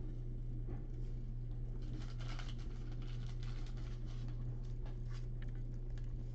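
Faint rustling and light clicks of trading cards being handled and slid, over a steady low hum.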